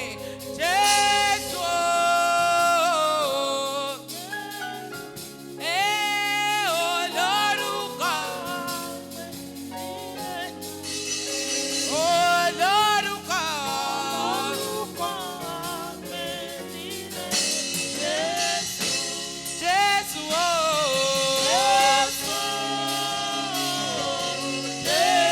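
Gospel choir singing with instrumental accompaniment, the voices rising and falling in long sung phrases over steady held chords.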